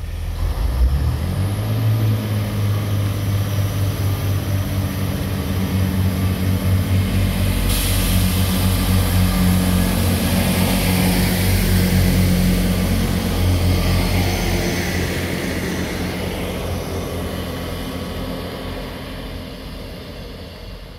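Class 158 diesel multiple unit pulling away and passing, its underfloor diesel engines giving a steady low drone. The drone builds for about ten seconds and then fades as the train goes off into the distance. A higher hiss joins about eight seconds in.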